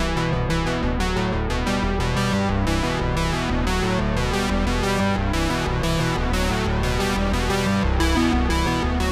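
Background music led by a synthesizer keyboard, a quick, steady run of notes over a bass line.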